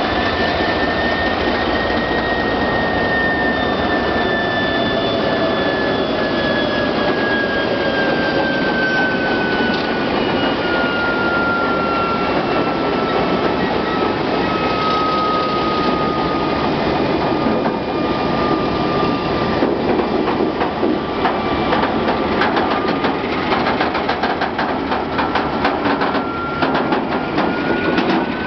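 MLW-built CP 1550-series locomotive's ALCO 251C3 V12 diesel engine working as the freight train pulls away. Its high whine slowly falls in pitch and rises again near the end. Through the second half the passing freight wagons' wheels clatter and click rapidly on the track.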